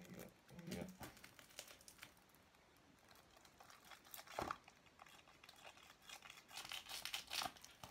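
Plastic shrink-wrap being crinkled and peeled off a boxed film collection: faint, irregular crackling that grows denser near the end, with one soft knock about four seconds in.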